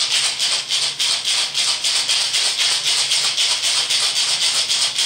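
Ice rattling inside a martini shaker shaken hard and steadily, about five strokes a second, chilling a pomegranate martini.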